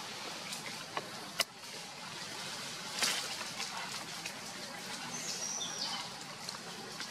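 Outdoor ambience on a leaf-littered forest floor, with a sharp click about a second and a half in, a brief rustle-like burst about three seconds in, and a short high chirp that drops in pitch a little after five seconds.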